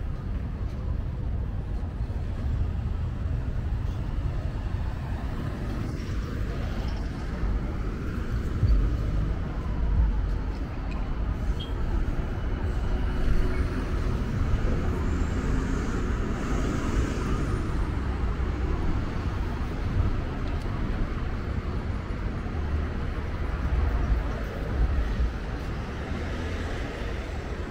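City street traffic: vehicles passing with a steady low rumble that swells now and then as louder ones go by.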